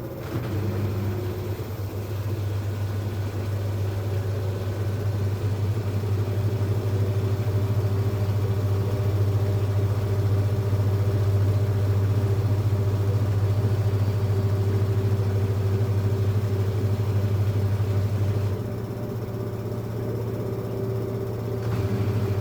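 LG F1292MD front-loading washing machine on its spin cycle: a steady loud drum-and-motor hum with a squeak, which is the fault being recorded. The sound drops in level about three-quarters of the way through and picks up again near the end.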